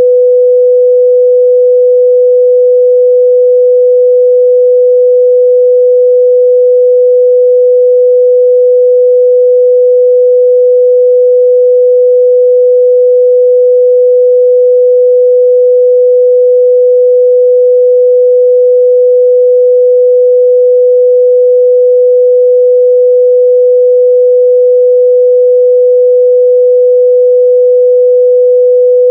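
Steady pure 497 Hz sine-wave test tone, a single unwavering mid-range pitch held at constant loudness, used to check speaker and headphone response.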